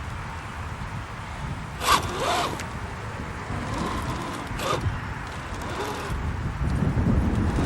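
Electric motor and gearing of a radio-controlled scale truck whirring in short bursts, about two seconds in and again near five seconds, over a steady low rumble.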